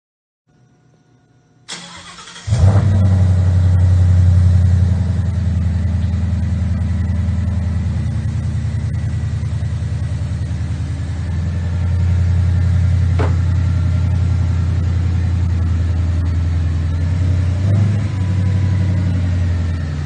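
Ford Mustang RTR engine cranked by the starter and catching about two and a half seconds in with a short rev flare, then idling steadily and loudly. The revs rise slightly around twelve seconds in, with a brief blip near the end.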